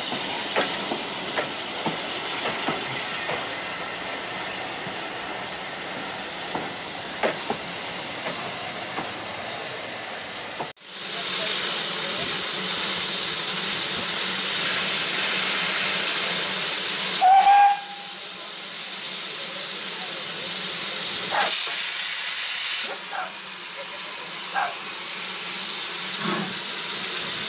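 Steam locomotive letting off steam: a steady loud hiss that drops out briefly near the middle and resumes. About two-thirds of the way through comes one short, sharp steam-whistle toot.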